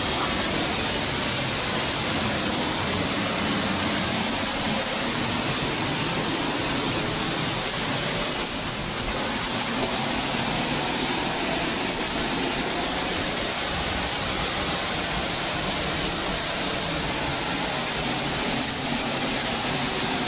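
Waterfall heard from close up behind its falling curtain of water: a steady, even rush of water pouring onto a rocky pool.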